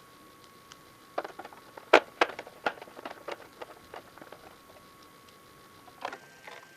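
Irregular small clicks and taps, the loudest about two seconds in, from the plastic and metal parts of a DVD player being handled and fitted back together. A faint steady high whine runs underneath and stops about six seconds in.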